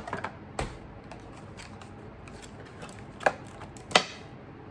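Handling of a skincare product and its packaging: a scatter of light clicks, with a sharper tap about half a second in and two more a little after three and four seconds.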